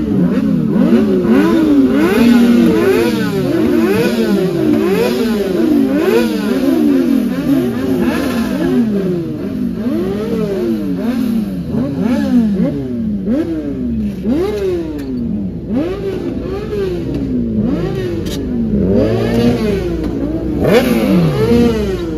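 Several superbike engines revving over and over, their overlapping revs rising and falling in pitch again and again.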